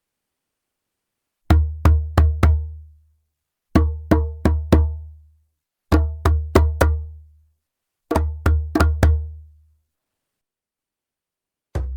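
Djembe played by hand in short phrases: four groups of four quick strokes, each with a deep bass ring under the slaps, separated by short silences. A faster run of strokes begins near the end.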